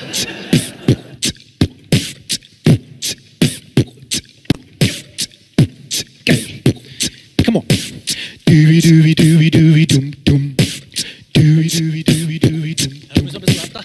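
Beatboxing: a fast, steady rhythm of vocal kick and snare sounds. About eight and a half seconds in, a low hummed bass line joins it and breaks off briefly twice.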